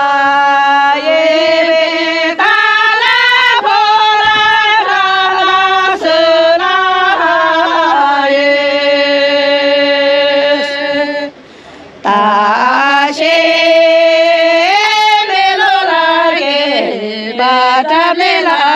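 A woman singing a slow song in long held, ornamented notes, breaking off briefly about two-thirds of the way through before going on.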